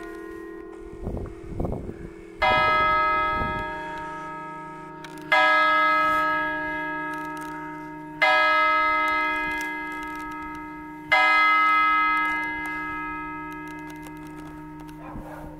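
Bronze church bell ringing out: four single strokes about three seconds apart, each fading into the lingering hum of the bells. After the fourth stroke no more come and the sound dies away. This is delopust ringing, which marks the end of the working week.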